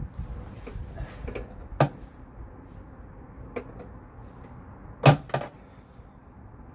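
A few sharp metallic knocks and clinks of hand tools on car parts: single knocks about two and three and a half seconds in, and the loudest, a quick double knock, about five seconds in.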